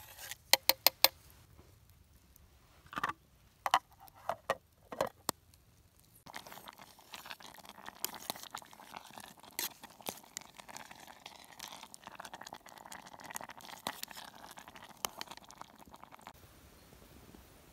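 A spoon clinks and taps several times against a metal camp pot. About six seconds in, a steady crackling and simmering starts from the campfire and the steaming pot on it, and stops shortly before the end.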